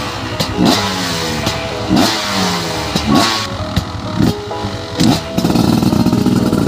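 Dirt bike engine being revved in short throttle blips, about five or six rises and falls in pitch, then held at a steadier, louder run near the end.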